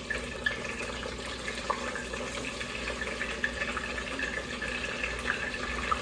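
Battered flounder frying in hot grease in a pot: steady sizzling with many small crackling pops.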